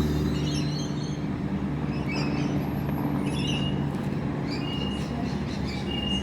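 Electric passenger train's low steady hum, easing off about a second in, with birds chirping repeatedly over it.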